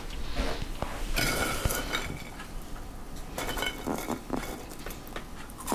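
Scattered light clinks and taps of a metal spatula and utensils against a plate and counter as freshly fried French fries are handled.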